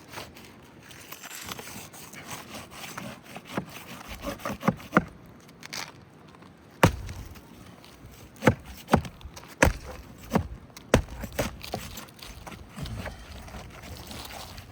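A damaged roof shingle being pried loose and its nails unfastened: scraping and crackling with a series of sharp knocks, the loudest of them between about seven and eleven seconds in.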